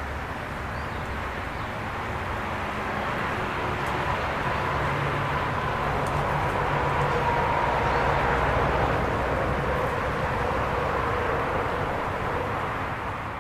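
Rushing noise of a distant passing vehicle with a faint hum, swelling to its loudest a little past the middle and easing off near the end.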